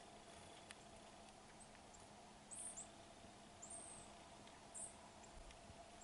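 Near silence: a faint steady hum, with a few short, very high-pitched chirps about two and a half, three and a half and five seconds in.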